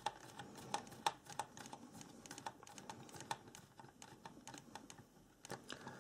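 Faint, irregular clicks and ticks of a hand screwdriver turning a small screw into plastic to fasten a circuit board. The clicks stop about five seconds in.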